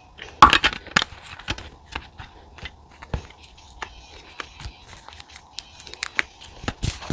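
Paper being handled: a crinkling, tearing rustle about half a second in, then scattered light taps and clicks.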